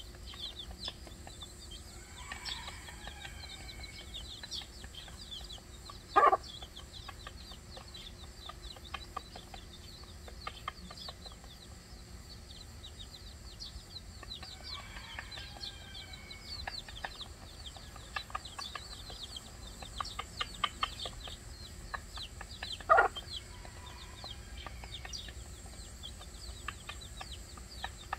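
A hen and her chicks feeding: a steady stream of short, high chick peeps mixed with pecking, and two loud, short clucks from the hen, about six seconds in and again near the end.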